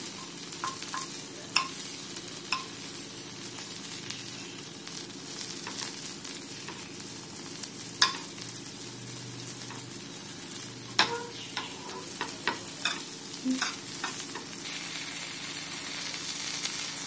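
Masala-coated drumstick pieces sizzling steadily in hot oil in a frying pan, with sharp clicks and scrapes of a metal utensil on the pan as the pieces are turned over, the loudest click about eight seconds in.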